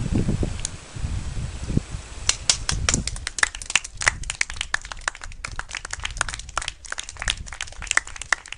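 Scattered hand clapping from a small group of people: irregular sharp claps, several a second, starting about two seconds in, after a low rumble of wind on the microphone.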